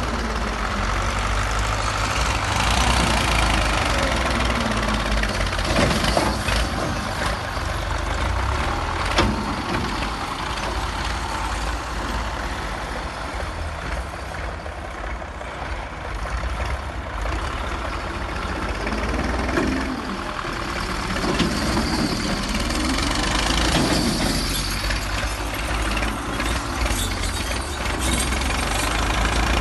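Excavator's diesel engine and hydraulics working, the pitch rising and falling as the machine is worked. A few sharp clanks stand out, the loudest about nine seconds in.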